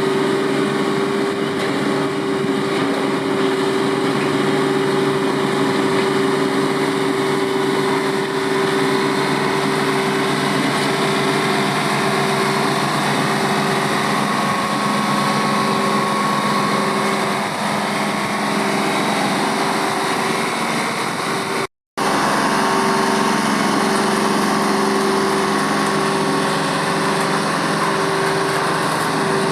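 An engine of working machinery running steadily at a constant speed, with a brief dropout about twenty-two seconds in.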